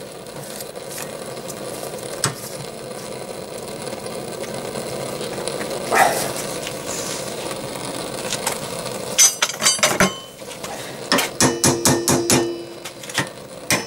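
Steel locking pliers clamped on a stuck, heated needle-bearing inner race being worked against it. A steady hiss runs for the first several seconds; then, from about nine seconds in, comes a quick series of sharp metallic clicks and knocks as the pliers are wrenched on the race.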